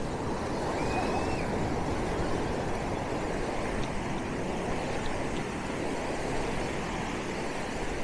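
Ocean surf breaking and washing up the beach: a steady rush of waves, with a faint short high call about a second in.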